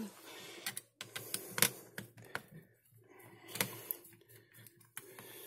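A handful of small, sharp clicks and taps spread over several seconds, with faint handling rustle between: a screwdriver and small screws working on the metal CPU heatsink of an opened laptop as the cooler's screws are undone.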